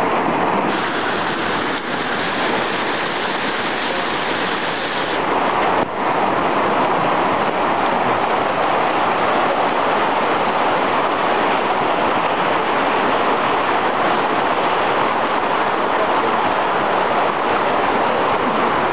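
Mountain creek rushing, a steady loud noise of water, with an extra high hiss that drops away about five seconds in.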